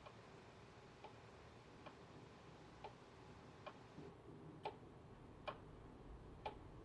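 A clock ticking faintly, about one tick a second, the ticks growing louder toward the end.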